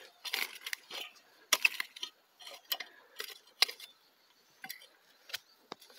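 Steel multi-tine garden rake scraping and dragging through loose, stony tilled soil, forming a planting ridge. It makes a quick run of gritty scrapes with pebbles clicking, thinning to a few light clicks in the last two seconds.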